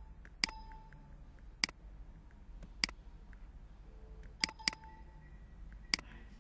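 Computer mouse button clicks: six sharp clicks, three single ones a little over a second apart, then a quick double click, then one more near the end.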